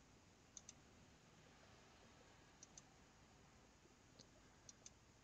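Computer mouse clicking: three faint pairs of quick clicks a couple of seconds apart, against near silence.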